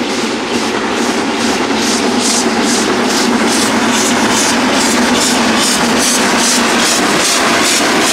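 Garratt steam locomotive working hard as it approaches and passes close by: sharp exhaust beats, about three a second, over a steady hiss of steam, growing a little louder as it nears.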